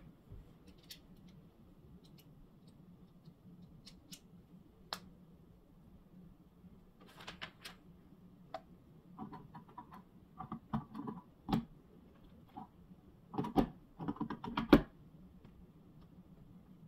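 LEGO bricks being pressed together and handled: scattered small plastic clicks and snaps, sparse at first and then in quick clusters through the second half, over a faint steady low hum.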